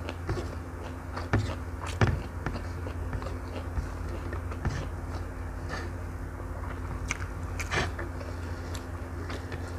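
Close-miked eating by hand: chewing and wet mouth sounds, with fingers squishing and pressing rice and fried instant noodles against a plate. A few sharper clicks stand out, about a second and a half and two seconds in and again near the end, over a steady low hum.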